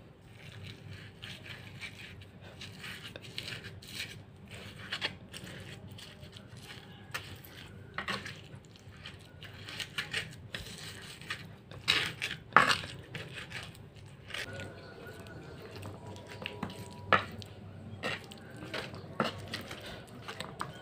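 Pestle (ulekan) grinding and pounding chillies, tomato and garlic in an earthenware mortar (cobek): irregular crushing and scraping strokes with knocks of the pestle on the mortar, a few sharper and louder about twelve and seventeen seconds in.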